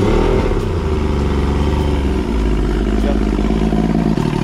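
Chrysler Force 85 three-cylinder two-stroke outboard running just after being started for the first time on its rebuilt carburettors, with the throttle worked by hand at the carburettor linkage. The note shifts about two seconds in, and near the end it falls into an uneven, pulsing run.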